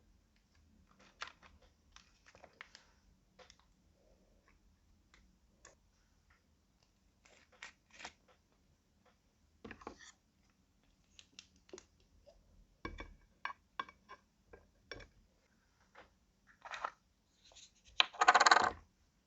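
Slime being handled and mixed with makeup and small parts: scattered sticky clicks, crackles and light taps, with one louder, noisier sound lasting about half a second near the end.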